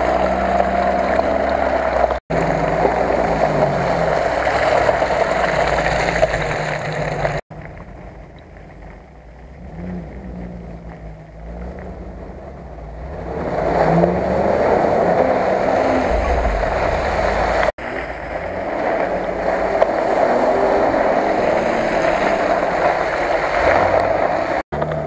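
Off-road 4x4 engines revving and labouring through mud, in several short clips joined by abrupt cuts. About a third of the way in the engine sound drops to a distant, quieter run for several seconds, then an engine comes up loud again.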